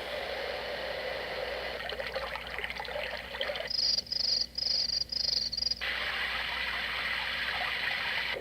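Sharper Image Natural Sound Soother playing a recorded nature sound: a steady watery hiss with chirping calls. About four to six seconds in come four loud, high chirping trills in a row.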